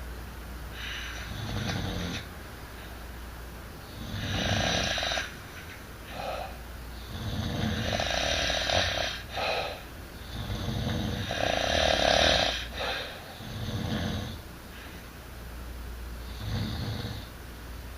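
Snoring: a run of rasping snores at uneven intervals, some brief and some over two seconds long.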